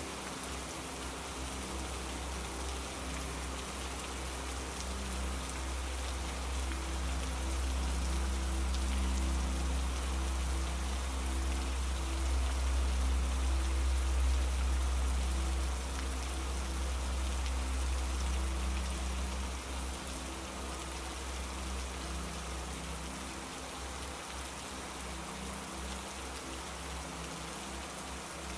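Steady rain hiss with a deep rumble underneath that swells towards the middle and eases off about two-thirds of the way through, with faint low held tones.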